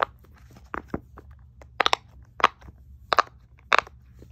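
Silicone bubbles of a bear-shaped pop-it fidget toy being pushed through one after another, making short sharp pops at an uneven pace, about ten of them, some in quick pairs and triples.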